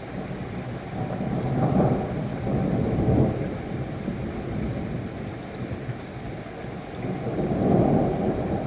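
Steady rain with rolling thunder rumbling through it, the rumble swelling twice: about two seconds in and again near the end.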